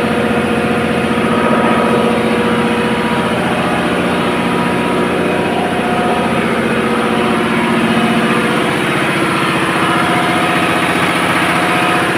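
Ship's diesel auxiliary engine (generator set) running steadily at speed, a loud even drone with a constant hum.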